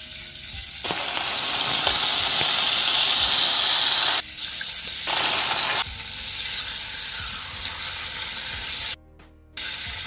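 Baby octopus (moscardini) dipped head-first into hot olive oil in a frying pan, sizzling loudly about a second in and again for a moment near the middle, with a steadier, quieter sizzle in between and after; the heat sets the tentacles curling. A half-second silence breaks in near the end.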